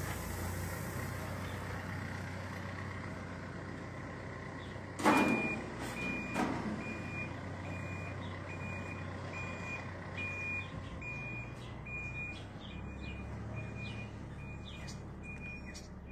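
Backhoe loader's diesel engine running steadily. About five seconds in come two loud clanks, and then its reversing alarm starts, a high beep repeating about one and a half times a second.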